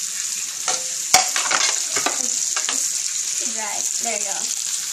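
Squid, meat and noodles sizzling in a hot wok while chopsticks stir and turn them, with a sharp click of wood on the pan about a second in.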